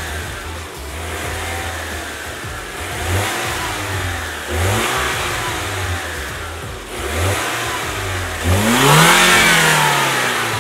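Lexus NX200t's turbocharged 2.0-litre four-cylinder idling with an AEM cold-air intake fitted, revved in short throttle blips every second or two, the biggest blip near the end.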